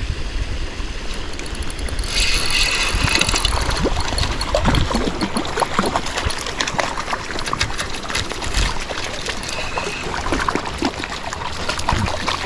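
Trout stream running and trickling, with many small splashes and a brief louder rush of water about two seconds in.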